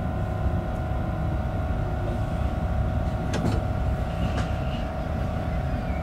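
Steady hum and low rumble of onboard equipment inside an Alstom Coradia Nordic X60B electric commuter train at a station platform, with a couple of faint knocks a few seconds in.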